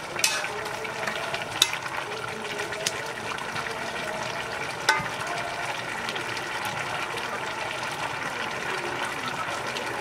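Potatoes boiling in a wide metal pan of liquid with a steady bubbling hiss. A metal ladle stirs them and knocks against the pan a few times in the first five seconds, the last knock ringing briefly.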